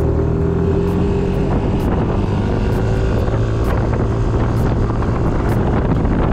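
Yamaha Smax 155 scooter's single-cylinder engine running as the scooter rides along, with wind noise on the microphone.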